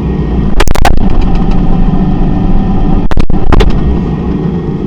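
Steady low mechanical hum of a refrigerator running, heard from inside the closed fridge, broken by two quick clusters of sharp clicks or knocks, under a second in and again after about three seconds.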